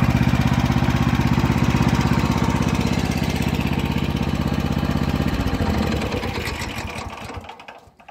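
Shtenli 1900 walk-behind tractor's 450 cc single-cylinder petrol engine idling steadily, then running down after about five seconds and stopping near the end as it is switched off.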